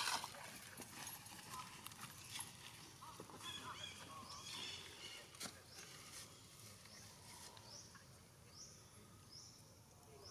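Faint, wavering squeaks and whimpers from a newborn long-tailed macaque, with small clicks and rustles of grass as it is handled. In the last few seconds a run of short, high rising chirps repeats about every half second behind it.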